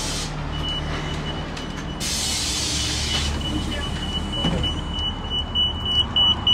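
City bus running with a steady low engine rumble. About two seconds in, a burst of air hiss sounds. A high warning tone runs under it and turns into rapid repeated beeps near the end, as the bus stops and its doors open.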